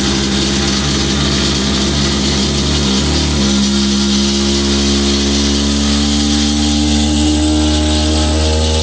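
Hydraulic dump trailer's bed lowering, its hydraulic system making a loud, horrendous steady groaning whine of several held tones over a hiss, with a brief wobble in pitch about three seconds in. The cause is unknown; the owner suspects turbulence in the hydraulic line.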